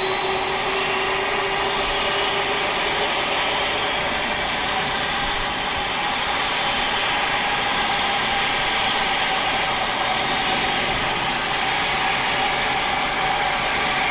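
C-5M Super Galaxy's four turbofan engines running: steady jet engine noise with high whining tones, one of which drifts slightly up in pitch.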